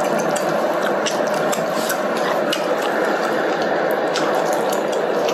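Broth boiling in an electric hot pot: a steady bubbling hiss with many scattered sharp pops and clicks.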